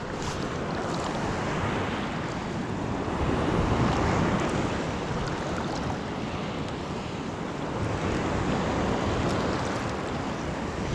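Sea surf washing on the shore with wind buffeting the microphone, a steady rush of noise that swells about four seconds in and again near the end.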